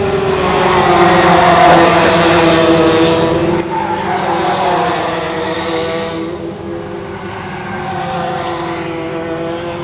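125cc two-stroke kart engines racing past at high revs, the pitch dipping and rising as the karts brake and accelerate through the corners. They are loudest about one to three seconds in as karts pass close, then fade as they move off.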